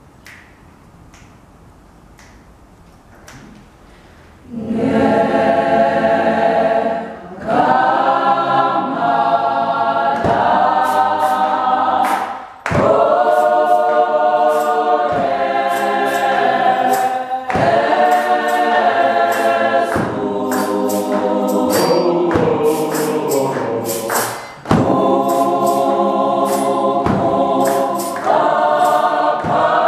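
Gospel choir singing a cappella in several parts, coming in about four seconds after a quiet start and going on in phrases with short breaks. Hand claps and a tambourine keep a steady beat under the voices.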